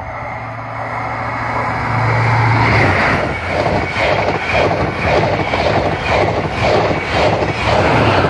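Virgin Trains East Coast passenger train approaching and passing close by at speed. A deep hum builds as the front end arrives about two seconds in, then the wheels clatter in a steady rhythm of about two beats a second as the coaches go by.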